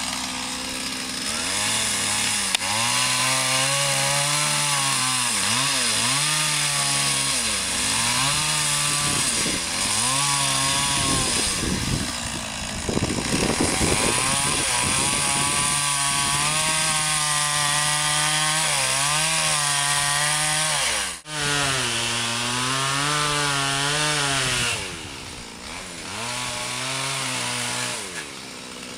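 Chainsaw cutting into wood during carving, its engine revving up and easing off over and over. The sound breaks off briefly about two-thirds of the way through and is somewhat quieter near the end.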